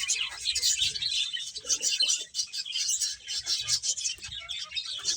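A group of pet finches chirping, with many short, rapid, overlapping calls.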